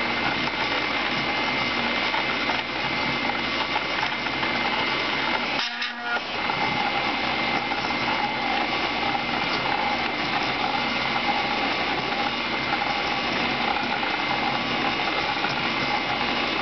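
Stepper-motor-driven CNC coil winder running steadily with a whine, spinning the bobbin while its wire guide traverses, winding 24-gauge Litz wire near 1,000 turns into a 1,200-turn coil. The sound dips for a moment just before six seconds in.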